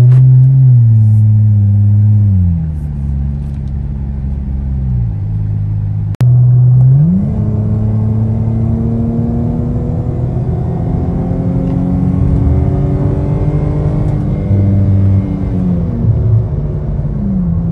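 Chrysler 300's engine and exhaust heard from inside the cabin while driving: the revs fall away over the first couple of seconds, then the engine pulls up through the revs and holds a steady drone at highway speed, easing off briefly near the end.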